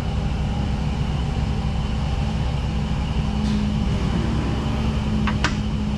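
Jeep engine running steadily at idle, with a few sharp metallic clicks about five seconds in.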